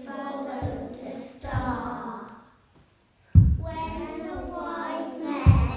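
A group of young children singing together. The singing cuts out for under a second about halfway through, then starts again over low thumps, the loudest just as it resumes.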